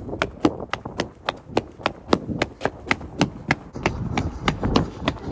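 Quick footsteps of a person running on a concrete path, an even run of sharp slaps at about four a second.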